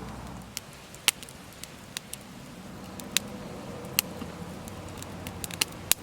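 Wood fire crackling: irregular sharp pops and snaps over a low, steady hiss.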